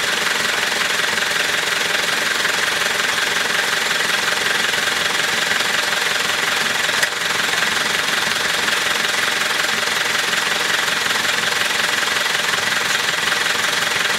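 Off-road vehicle engine running steadily with a fast, continuous clattering rattle.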